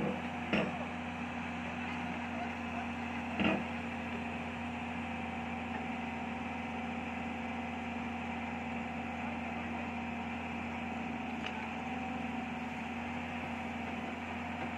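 Heavy diesel machinery running at a steady, unchanging pitch. There are two sharp knocks about three seconds apart near the start.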